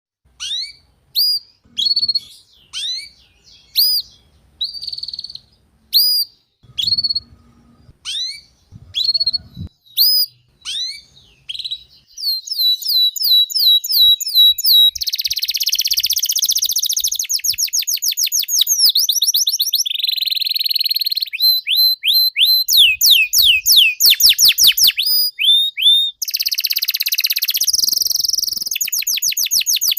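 Domestic canary singing. Single upward-sweeping chirps come about once a second for the first dozen seconds, then the bird breaks into continuous fast trills and rolls.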